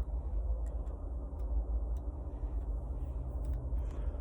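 A low, uneven rumble with a few faint, sharp clicks spread through it, as of small set screws and the shift knob being handled.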